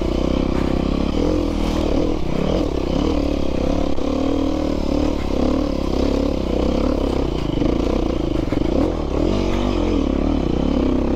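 Dirt bike engine revving up and down over and over as the bike is ridden through a stretch of sand whoops.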